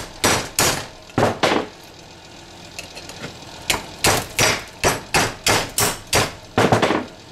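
Hammer blows on a telephone part clamped in a bench vise, knocking it apart to free the brass inside. About four blows come first, then a pause of about two seconds, then a quicker run of about ten.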